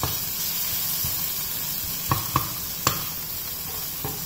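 Chopped onions, tomato and green chillies sizzling steadily in hot oil in a frying pan while a spatula stirs them, scraping and knocking against the pan a few times, the sharpest knocks about two to three seconds in.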